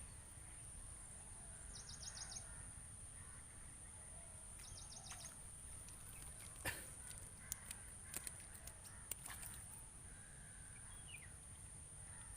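Faint outdoor ambience: a steady high-pitched insect drone, with distant birds calling, including two short rapid trills, and a few sharp clicks near the middle.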